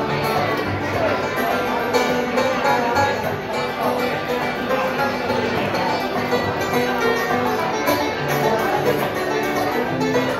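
Acoustic bluegrass string band playing an instrumental break, with banjo, fiddle, guitar and dobro going together at a steady tempo.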